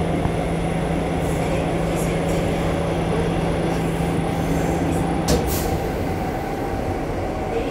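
Busan Metro Line 1 subway train running, heard from inside the car: a steady rumble of wheels and running gear with a low steady hum. About five seconds in the hum cuts off as a sharp click sounds.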